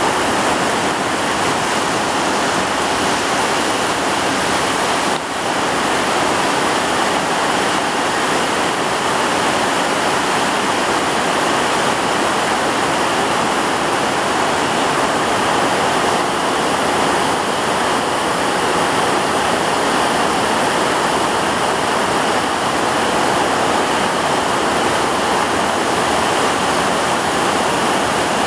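Heavy rain pouring down as a loud, steady hiss, with a brief dip about five seconds in.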